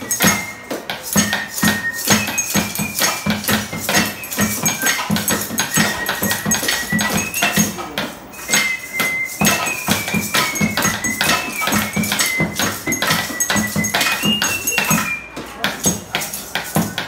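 Improvised percussion band playing a steady beat: low thumps on plastic containers mixed with metallic clinks and clatter, with a thin high melody line wavering over the top.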